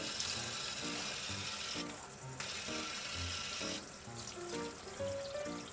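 Water running steadily with an even hissing spray, under soft background music.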